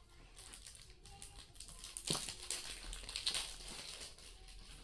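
Quiet handling of jewelry and its plastic packaging: faint rustling, with one sharp click about two seconds in, over faint music.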